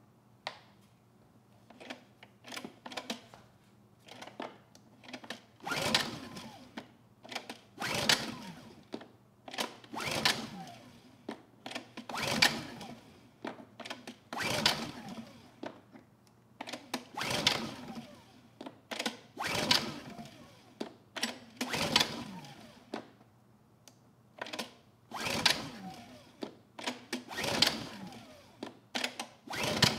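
Honda EU2000i inverter generator being pull-started by its recoil starter: about ten pulls, roughly every two seconds, each a quick whir of the rope and the engine turning over, then dying away without the engine catching. A few light clicks come before the first pull.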